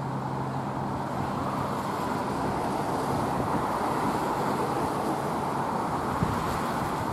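Steady distant rumble of an LNER Class 43 HST running across a long railway bridge, even in level throughout.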